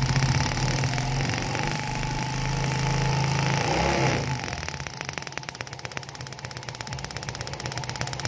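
Suzuki Smash motorcycle engine being cranked over with its spark plug out for a spark test of a new ignition coil. A steady mechanical hum with rapid ticking stops about four seconds in, and a fainter ticking follows.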